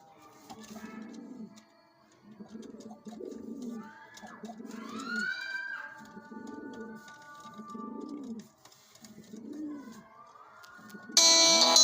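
Pigeon cooing: low, rounded coos repeated about once a second, with some higher gliding chirps above them. Loud music cuts in suddenly near the end.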